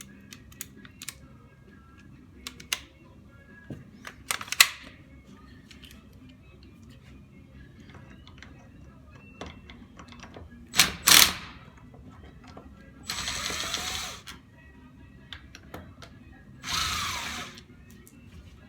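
Tools and metal parts clicking and knocking while a Graco Fireball pump is taken apart, with two louder clanks, one about four seconds in and one about eleven seconds in. Two short hissing bursts of about a second each come near the end.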